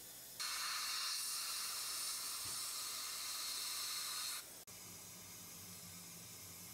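A steady hiss that starts about half a second in and stops suddenly about four seconds later, followed by a faint low hum.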